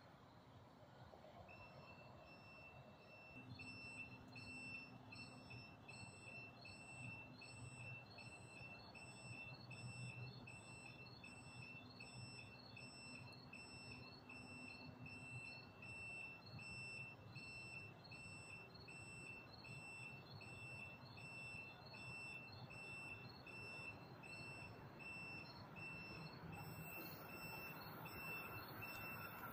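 Faint electronic beeping, a high tone pulsing about twice a second, starting a second or two in and keeping on steadily over a low rumble. In the last few seconds a rising hiss comes up under it as a train approaches.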